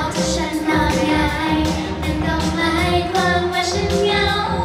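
Thai idol pop song: high female group vocals singing a melody over a pop backing track with a steady beat, played loud through a stage PA.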